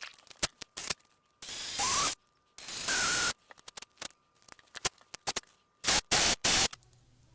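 Bench handling of small parts: scattered clicks and three short rasping scrapes, each about half a second long.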